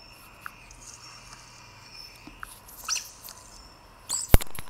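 Raw chicken pieces coated in egg being kneaded by hand in a steel bowl: soft wet squelches and small clicks, with one sharp knock about four seconds in.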